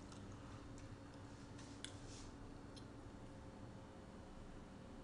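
Near silence over a faint steady hum, broken by four or so light clicks and taps of a plastic food container being handled.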